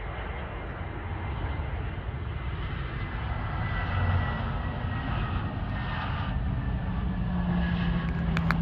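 Jet engines of an Airbus A320 airliner touching down and rolling out along the runway. A steady rushing noise with a high whine that sinks slightly in pitch grows louder as the jet rolls on, with a deeper hum building near the end.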